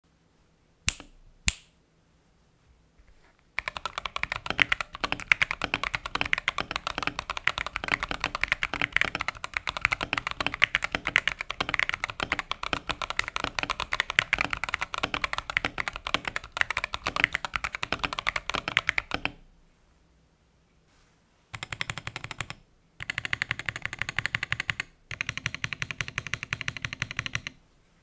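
Typing on a Womier K87 mechanical keyboard with Gazzew Boba U4T tactile switches, XDA PBT keycaps, a taped and foam-lined case and lubed stabilizers. Two sharp clicks come about a second in. Then a long run of fast typing lasts about fifteen seconds, and after a short pause come three shorter rapid bursts of key strokes.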